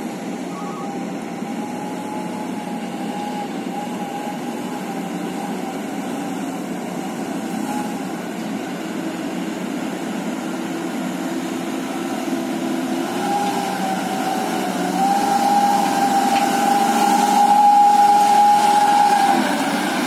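Loaded Mitsubishi Fuso dump truck's diesel engine running as the truck drives up and past, growing louder as it nears, with a steady high whine over the engine note. It is loudest shortly before the end, then drops as the truck goes by.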